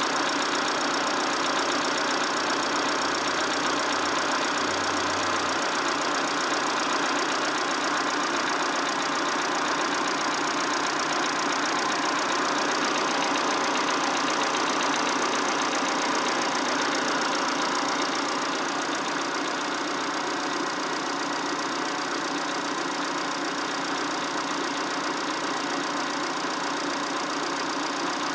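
Peugeot/Citroën TU5 1.6-litre four-cylinder petrol engine running steadily with a repeated knock whose cause the owner is asking about. The sound drops slightly in loudness about 18 seconds in.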